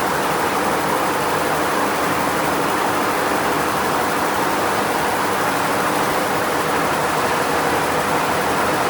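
Steady, even background noise with no distinct events, with a faint high-pitched whine.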